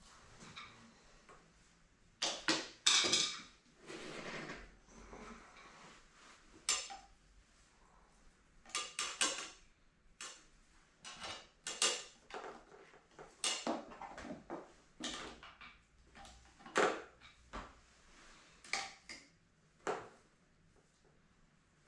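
Irregular light clicks and plastic clatter of spoke covers being pressed and wrapped onto a dirt bike wheel's metal spokes by hand, with the loudest clatter a couple of seconds in.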